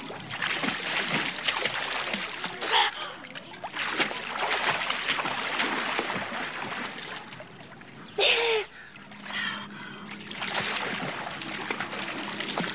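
Children splashing and playing in a swimming pool, water splashing throughout. A short high-pitched child's shout comes about three seconds in and a louder one about eight seconds in.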